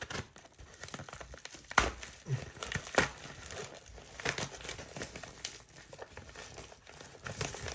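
Packaging crinkling and rustling as a parcel is unwrapped by hand, with scattered sharp snaps, the loudest about two and three seconds in.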